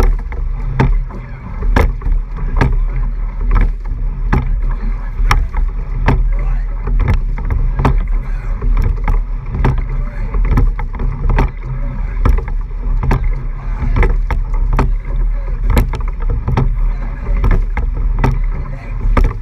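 Eight-oared racing shell under way at race pace: water rushing along the hull right by the microphone with a low wind rumble, and sharp clacks of the oars in their oarlocks repeating with each stroke, about once a second.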